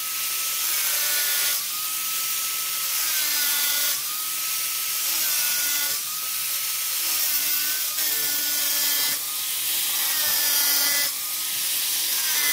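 Angle grinder with a tile-cutting blade running and cutting through PVC pipe. The motor's whine sags and recovers every second or two as the blade bites into the plastic.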